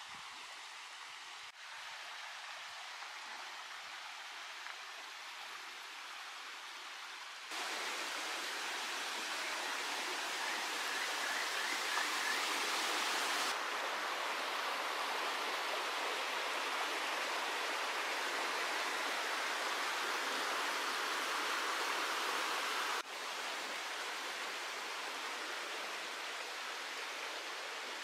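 Mountain stream rushing over rocks, a steady wash of water noise. It jumps louder about seven seconds in and drops back suddenly about twenty-three seconds in.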